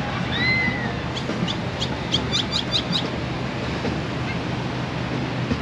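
Steady wash of surf and wind at the shore, with a bird giving one rising-and-falling whistled call near the start, then a quick run of about eight short high chirps.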